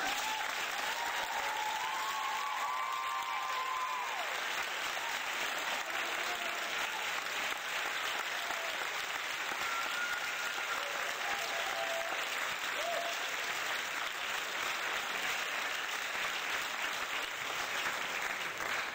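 Steady audience applause at the end of a song, which cuts off abruptly.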